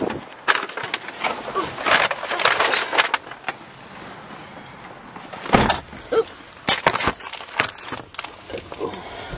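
Clicks, knocks and rustles of a takeout bag, plastic drink cup and handheld camera being handled while getting into a car, with one heavier thump about five and a half seconds in.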